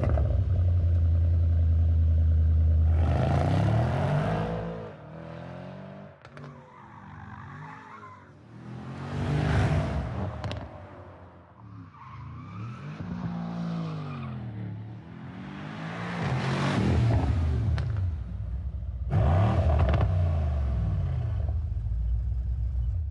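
Mercedes-AMG E-Class sedan engine running steadily at a raised idle for about three seconds, then revved over and over, the pitch climbing and falling with each blip, the loudest revs coming around the middle and near the end.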